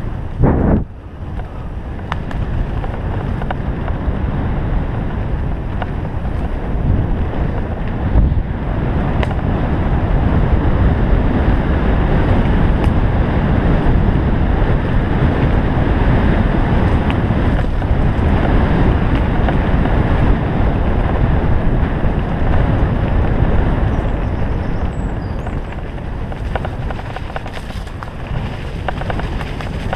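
Wind rushing over an action camera's microphone and tyres rumbling as a mountain bike rides fast along a dirt forest trail, with occasional knocks from bumps.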